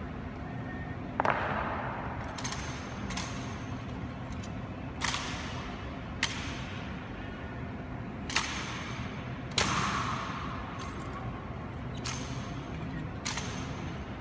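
Sharp clacks from an honor guard's rifle drill, about nine separate strikes spaced one to two seconds apart, each ringing out in a reverberant stone hall. The loudest strikes come just over a second in and again near the middle.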